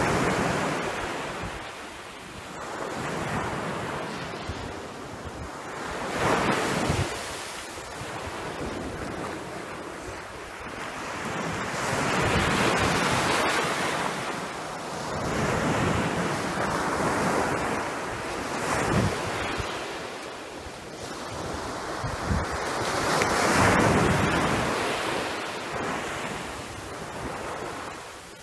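Sea waves washing in, swelling and fading every few seconds, with wind buffeting the microphone.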